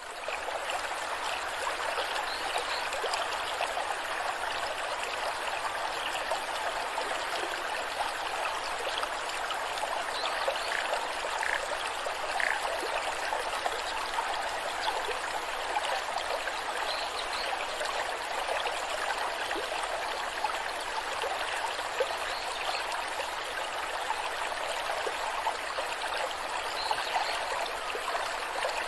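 Waterfall water cascading and splashing in a steady, even rush.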